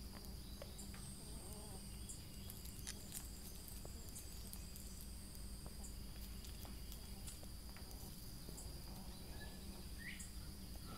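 Quiet outdoor background of insects chirring steadily at a high pitch, with a few faint scattered clicks.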